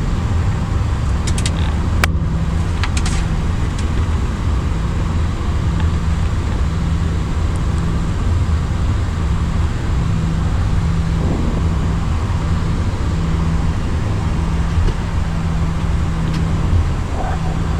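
Steady low rumble inside an Airbus A340-300 flight deck on the ground after landing, from the engines at idle and the aircraft's own running noise, with a few sharp clicks about two seconds in.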